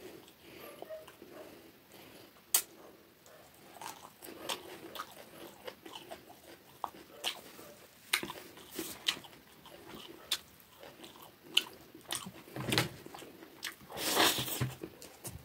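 Close-up eating sounds: a person chewing rice and rohu fish curry eaten by hand, with wet mouth noises and many short sharp clicks and crunches. About fourteen seconds in, a longer, louder stretch of mouth noise comes as a handful of rice goes into the mouth.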